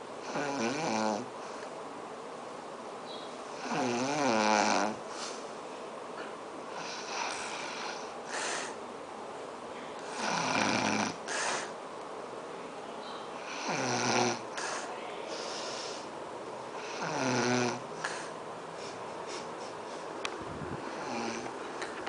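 A woman snoring open-mouthed in her sleep: five loud snores, each lasting about a second, a few seconds apart.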